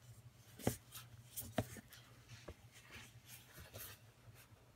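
Cardboard product box being handled and turned in the hands: fingers rubbing and scraping on the packaging, with two sharp taps or clicks about a second apart near the start.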